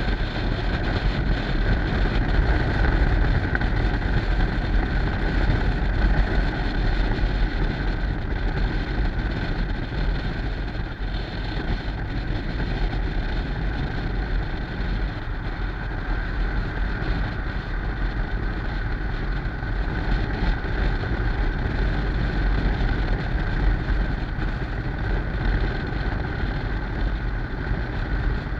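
Yamaha Stryker's V-twin engine running under steady riding, with wind buffeting the microphone and a constant low rumble.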